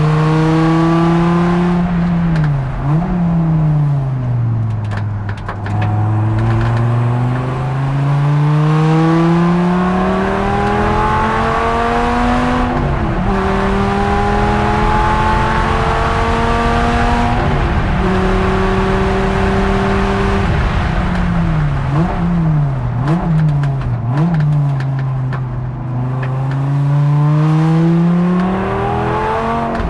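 Dodge Viper ACR-X race car's V10 engine heard from inside the cockpit on track. It pulls up through the gears with a sudden drop in pitch at each upshift. Under braking it makes quick throttle blips on the downshifts, once near the start and in a rapid run of three or four about two-thirds of the way through.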